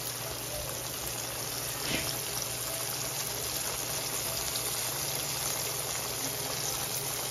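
Chicken tenders frying in hot oil in a pan: a steady sizzle with small crackles, and one louder pop about two seconds in.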